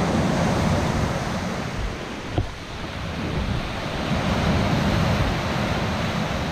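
Wind buffeting an action camera's microphone over the rush of surf, with gusts swelling and easing. A single short knock comes about two and a half seconds in.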